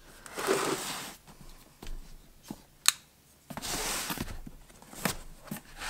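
Cardboard tool box being handled and its seal slit open with a folding pocket knife: two scraping, rustling stretches of cardboard and a few sharp clicks.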